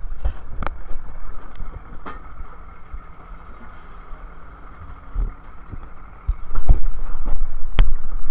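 Fishing vessel's engine and deck machinery running with a steady low hum and a faint whine, with a few sharp knocks and clanks on deck. Near the end a loud low rumble of wind on the microphone comes in for about two seconds.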